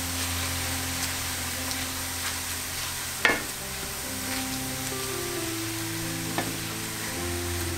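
Cauliflower rice and baby kale sizzling in a stainless steel skillet as a wooden spatula stirs them. The spatula scrapes and knocks against the pan, most sharply a little over three seconds in, over background music.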